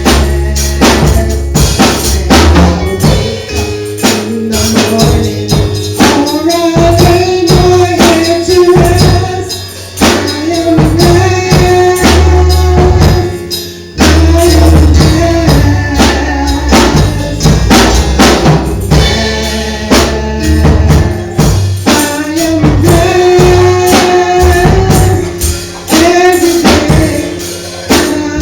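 Church band music with a singer: a sung melody over a drum-kit beat and heavy bass.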